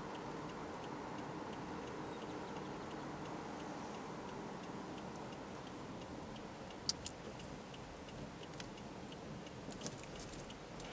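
A car's turn-signal indicator ticks steadily, about two ticks a second, over a faint low hum in the cabin. A couple of sharper clicks come about seven seconds in and again near the end.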